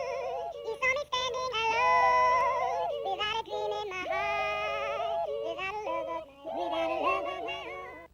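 Trailer music with high-pitched, sped-up, chipmunk-like singing voices in a quick, bouncing melody. It cuts off abruptly at the end.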